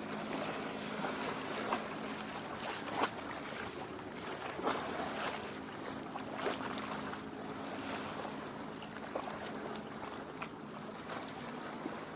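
Small lake waves lapping against a rocky shore: a steady wash of water broken by frequent little splashes and gurgles.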